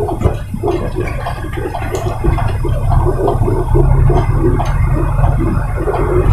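Container truck driving, heard as a steady low engine and road rumble with an irregular churning noise over it.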